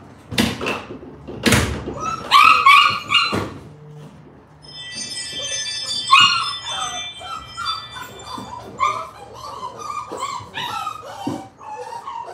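Dogs barking, yipping and whining, with a long high whine about five seconds in and a string of short yips after it. A few sharp knocks come in the first few seconds.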